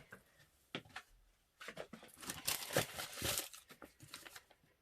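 Packaging being handled, rustling and crinkling for a couple of seconds in the middle, with a few light knocks of small objects being picked up and set down before and after.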